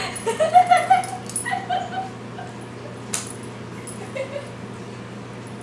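High-pitched, squealing laughter from two women, mostly in the first two seconds, with a sharp click about three seconds in.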